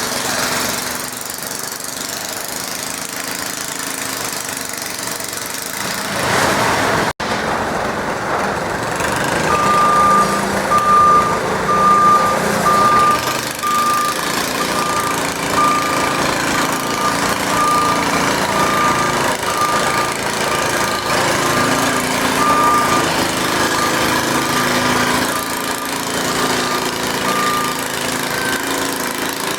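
Small garden tractor engines running at a tractor pull, with a vehicle's reversing beeper sounding in a steady string of evenly spaced beeps, about one and a half a second, starting about a third of the way in and stopping near the end. A brief dropout about a quarter of the way in breaks the sound.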